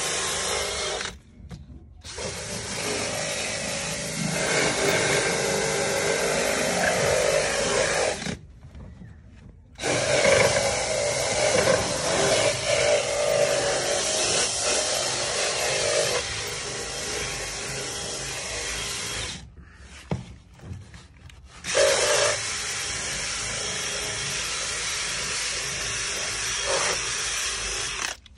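Cordless drill spinning a round scrub pad against a vinyl and painted car door panel, running in long stretches with short pauses about a second in, about eight seconds in and about twenty seconds in.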